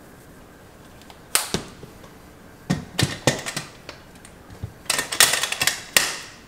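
Aluminium CanCooker pot and lid clanking as the lid is fitted and the pot is handled on a glass-top stove. A few separate sharp knocks come first, then a quick run of metal clatter about five seconds in.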